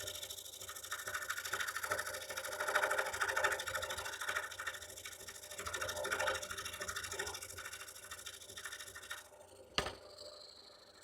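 Scroll saw running and cutting wood, its blade reciprocating in rapid strokes, the sound swelling and fading as it cuts. It stops about nine seconds in, and a single sharp click follows.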